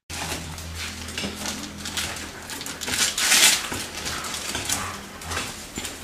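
Small clicks and clinks of metal instruments and handling as workers treat a dog's wound on the floor, over a steady low hum, with a brief louder hiss about three seconds in.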